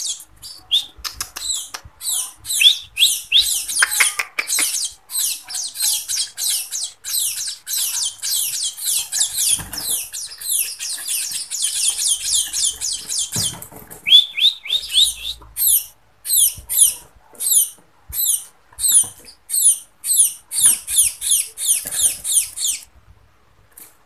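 Young munia (emprit) chicks begging to be fed: fast, high-pitched chirps, a dense run of them for the first twelve seconds or so, then spaced chirps two or three a second that stop shortly before the end.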